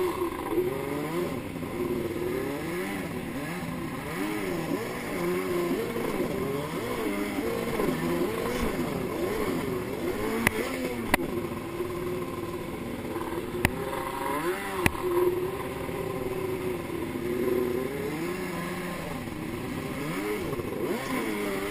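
Jet ski's two-stroke engine running hard, its pitch rising and falling over and over with the throttle, over the hiss of spray and water. A few sharp knocks come between about ten and fifteen seconds in.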